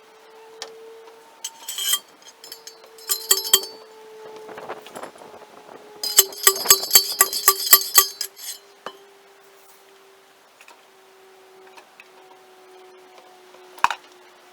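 Sharp metallic clinks and taps in several clusters, the busiest a quick run of about a dozen strikes around the middle, over a steady hum that sinks slowly in pitch.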